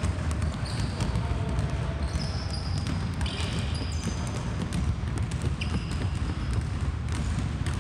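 Several basketballs being dribbled at once on a hardwood gym floor, a quick irregular run of overlapping bounces, with short high squeaks of sneakers on the floor now and then.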